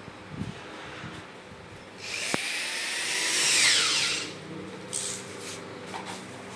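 Handheld electric drill running for about two seconds, its pitch falling as it winds down.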